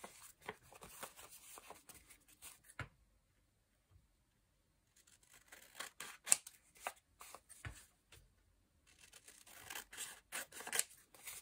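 Quiet snips of hand scissors cutting through a book page with a printed fabric panel glued to it. They come in short runs of cuts, with a pause of a couple of seconds about three seconds in.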